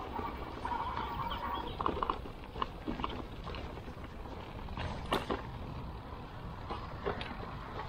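Electric mountain bike riding a rocky trail: a steady rumble of wind and tyres on the action camera's microphone, with scattered sharp knocks and rattles from the bike over stones, the sharpest about five seconds in. A thin steady whine sounds for about a second near the start.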